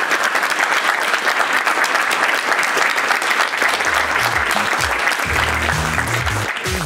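An audience applauding after a talk. Beat-driven electronic music with a deep bass line comes in under the applause about four seconds in and takes over as the clapping dies away near the end.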